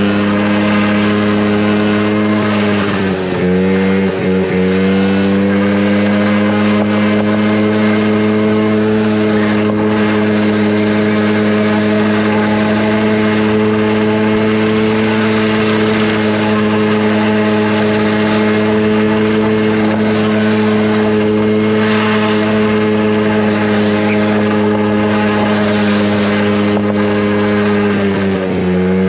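Small off-road vehicle engine running hard at a steady high speed close by, with brief dips in revs about three to four seconds in and again near the end.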